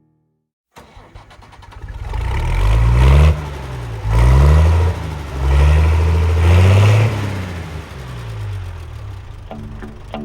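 An engine starting and then revving up and down several times, with three loud surges. Guitar music starts near the end.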